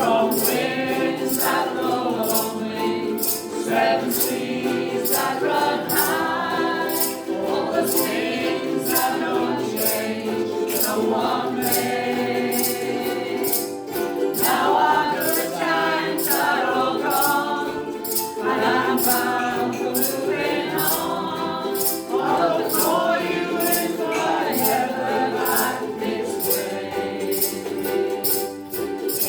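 Ukulele group singing together in unison over strummed ukuleles, with a steady rhythmic shaker or strum beat about twice a second.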